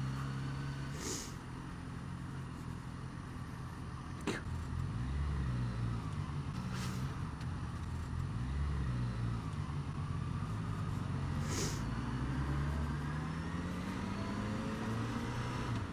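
Suzuki DRZ400SM single-cylinder four-stroke engine through a Lextek carbon exhaust, running at low speed with its revs rising and falling several times. A few short hisses and a single click sound over it.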